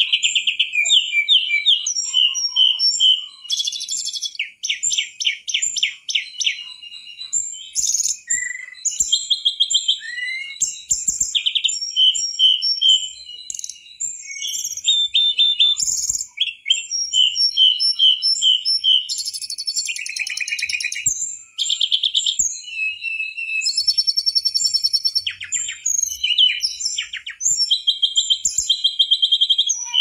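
Mangrove blue flycatcher singing almost without pause: a varied, high-pitched song of rapid trills, chirps, whistled notes and quick repeated note series, broken only by short gaps.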